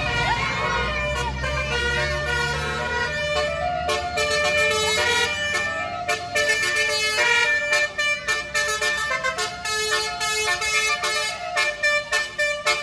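A tour bus's Basuri telolet horn sounding: siren-like rising and falling sweeps first, then a run of steady horn tones stepping through a tune, over the low rumble of the bus engine in the first few seconds.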